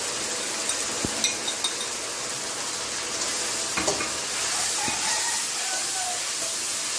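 Spice masala of fried onion and ginger-garlic paste sizzling in hot oil in a metal kadai as ground spices are stirred in with a metal spatula, which knocks against the pan a few times. This is the masala being fried (bhuna) in the oil.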